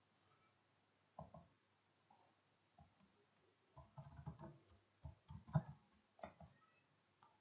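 Faint computer keyboard and mouse clicks: a single click about a second in, then a run of quick key taps from about four seconds to six and a half seconds as a folder name is typed.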